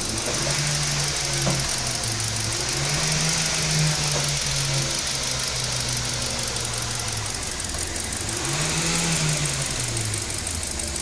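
Kia car's engine idling rough with a cylinder 3 misfire (code P0303), its speed rising and falling twice; the mechanic traces the misfire to a faulty ECM sending the wrong voltage to that cylinder.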